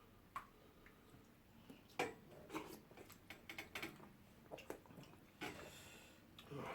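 Faint eating sounds, with scattered soft smacks and clicks of chewing and of hand-eaten starch and soup.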